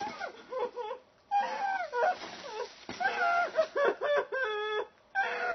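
A person wailing and whimpering in a run of wavering, pitched cries, with one cry held steady about four seconds in.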